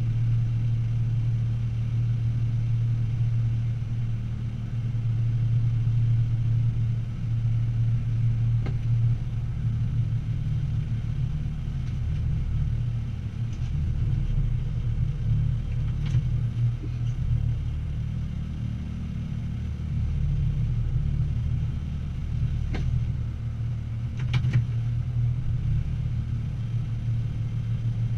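Truck's diesel engine running steadily at low revs during slow manoeuvring, a low rumble heard from inside the cab, with a few brief faint clicks.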